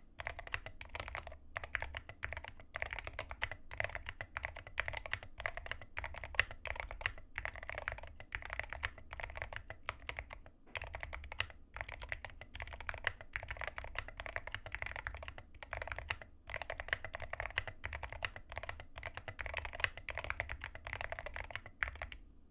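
Rama M60 mechanical keyboard with Zealios V2 67g tactile switches and SA-profile keycaps being typed on steadily, rapid keystrokes with a few brief pauses. The typing stops near the end.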